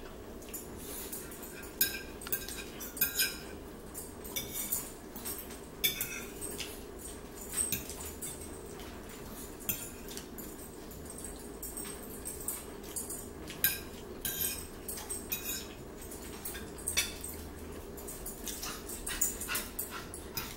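Close-up eating sounds: chewing and lip-smacking of bacon, eggs and toast as a string of irregular wet clicks, with now and then a fork against a plate, over a steady low hum.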